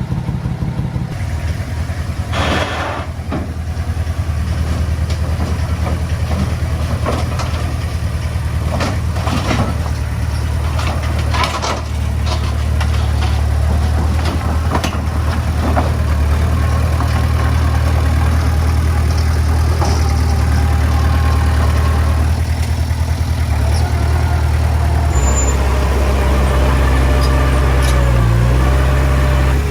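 Heavy diesel engine of earthmoving machinery running steadily, with scattered metallic clanks through the first half. The engine note changes a little past the middle of the last third and rises and falls briefly near the end.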